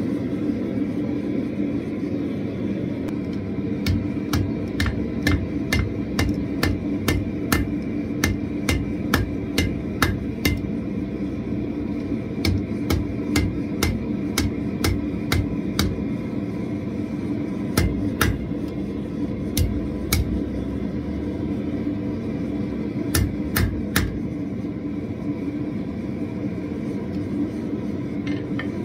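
Blacksmith's hand hammer striking red-hot steel on an anvil: a run of blows at about two a second, then shorter groups of strikes with pauses between. A steady rush from the gas forge runs underneath.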